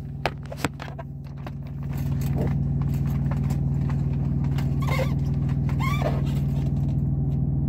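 An engine idling with a steady low hum, coming up about two seconds in. A few knocks and rustles from the camera being handled and set down come before it.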